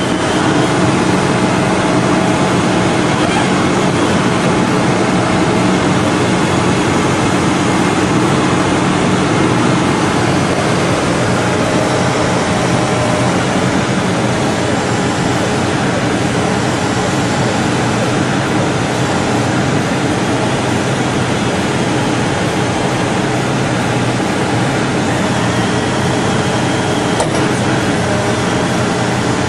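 Case backhoe loader's diesel engine running steadily as it digs a trench, a dense loud mechanical noise.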